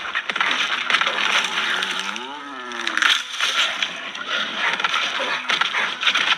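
Film sound effect: loud, dense crunching and crackling with scattered clicks, and a short pitched wail that rises and falls about two seconds in.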